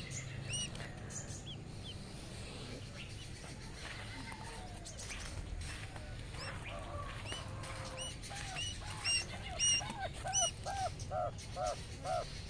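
Quail chick peeping in short, high chirps. From about two-thirds of the way in, a lower call repeats steadily about three times a second and grows louder: the mother quail calling her chicks to her.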